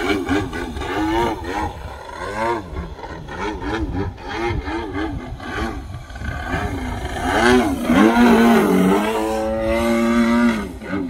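OS GT33 single-cylinder two-stroke petrol engine of a radio-controlled aerobatic plane in flight. Its pitch rises and falls again and again as the throttle is worked. It then holds one steady pitch for about three seconds near the end, where it is loudest.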